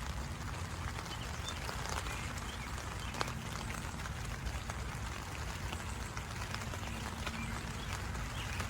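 Tent fabric rustling and crackling as it is handled, with small irregular clicks and a sharper click about three seconds in, over a steady low rumble.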